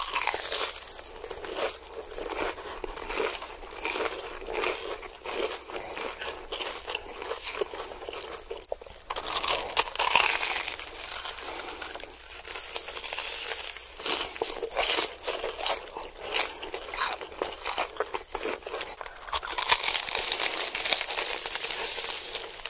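Close-miked crunching and chewing as two people bite into deep-fried, crumb-coated cheese corn dogs, one with a red crust and one with an orange breadcrumb crust. The crunches come thick and fast, loudest around the middle and near the end.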